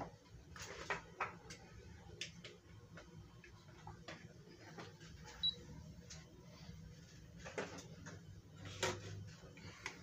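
Split air conditioner indoor unit giving one short, high beep about five and a half seconds in as it is switched on for a test, among scattered light clicks and knocks, over a faint steady low hum.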